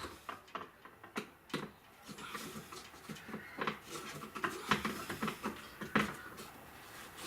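Screwdriver tightening a wire into a bus bar terminal: irregular small clicks and knocks of metal and handling.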